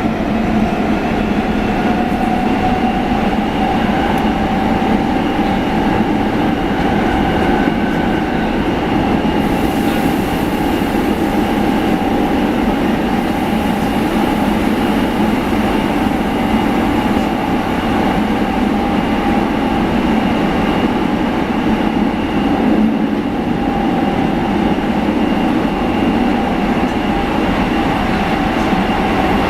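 Running sound heard inside a Nagoya subway 6000 series car with GTO-thyristor VVVF traction control: a steady, unchanging whine of several tones over loud wheel and tunnel rumble as the train runs at an even speed.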